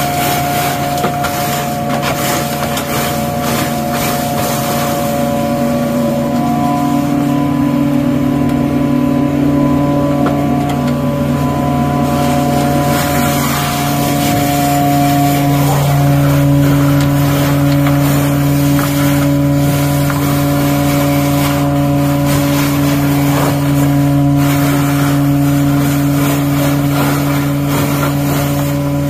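Engine of truck-mounted drain-cleaning equipment running steadily with a constant hum. It speeds up slightly about six seconds in and then holds.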